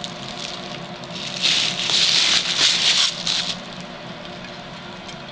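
Plastic bubble wrap crinkling and crackling as it is pulled off a shovel, loudest for about two seconds in the middle.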